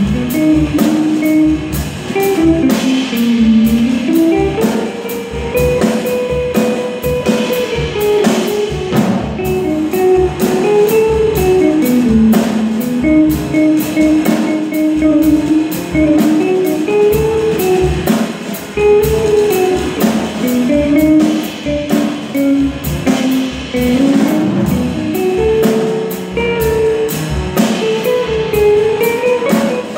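Small jazz combo playing live: a hollow-body electric guitar plays a single-note solo line over a drum kit keeping time on cymbals, with piano accompaniment.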